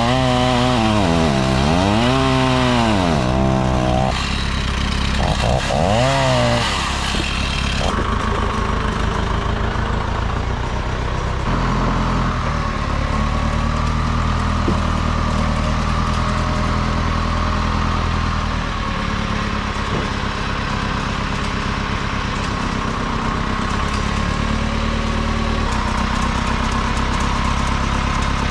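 A gasoline engine revving up and down several times, then running steadily.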